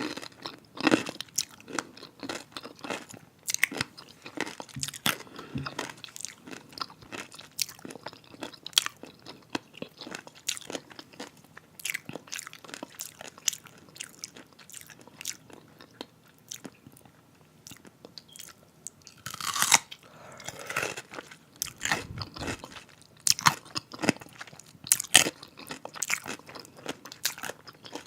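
Biting and chewing a crunchy pickle: a long, irregular run of crisp, wet crunches, loudest about twenty seconds in.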